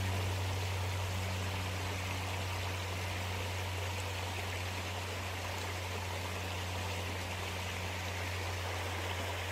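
Small creek running over rocks: a steady rush of water, with a steady low hum underneath.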